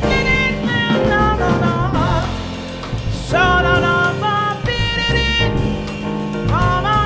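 Live jazz: a woman singing a melody with wavering, gliding held notes over piano, upright bass and drum kit with cymbals.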